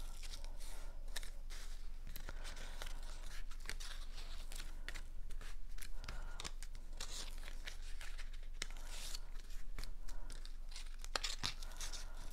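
Brown cardstock being folded along its score lines and creased by hand, with repeated crackles and rustles of stiff paper bending and sliding on the table.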